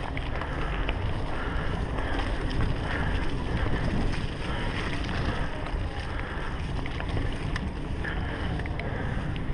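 Wind buffeting the action camera's microphone on a mountain bike riding woodland singletrack, with the tyres rolling over dirt and leaves. Scattered small clicks and rattles from the bike on the bumpy trail.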